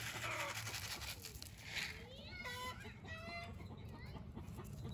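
Grain treat mix rattling out of a pouch onto grass, then hens clucking in two short bursts of calls about halfway through.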